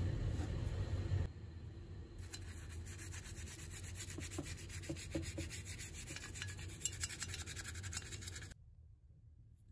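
A toothbrush scrubbing the cast-iron body of a hand plane in soapy water, in quick back-and-forth strokes that stop suddenly near the end. This is the cleaning stage after a rust soak. The first second or so is water noise as a hand reaches into the tub.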